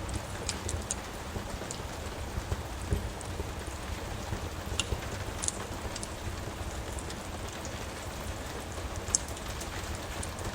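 Steady rain with a low rumble, broken by scattered sharp crackles and pops from a wood fire in a fireplace.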